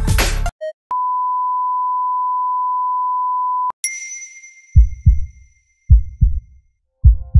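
Music cuts off and a patient monitor's flatline tone sounds: one steady high beep for about three seconds that stops abruptly. A bright ringing hit then fades out, followed by a heartbeat sound effect, low double thumps about a second apart.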